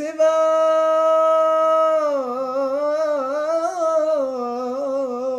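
A man's solo voice chanting haftarah cantillation in the Constantine Jewish tradition: one long held note for about two seconds, then a wavering, ornamented melisma.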